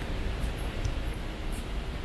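Steady street noise of traffic on a rain-wet road, an even hiss with a low, fluctuating rumble underneath.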